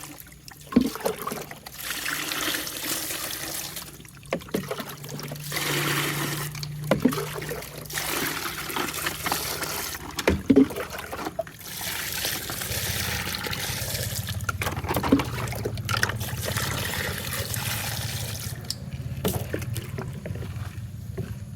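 Tap water running and splashing over plastic toy vehicles as they are washed, coming and going with short breaks, with several sharp knocks of the plastic toys being handled.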